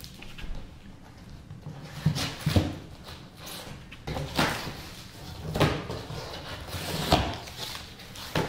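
Cardboard shipping box being opened by hand: a series of short scraping rustles and dull knocks as the taped flaps are cut free and pulled up.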